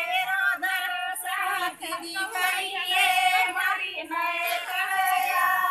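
Women's high-pitched voices singing a Banjara devotional song (bhakti geet), with no instruments standing out.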